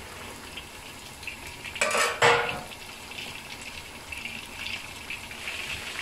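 Flour-coated pork pieces deep-frying in hot oil in a wok over raised heat, a steady sizzle. About two seconds in, a metal spatula clanks and scrapes against the wok a few times.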